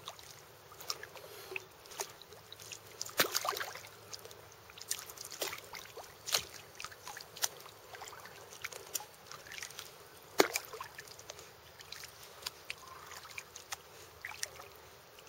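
Kayak paddle strokes in calm lake water: irregular drips, trickles and small splashes as the blades dip and lift. There are a few sharper clicks among them, the loudest about three seconds in and about ten seconds in.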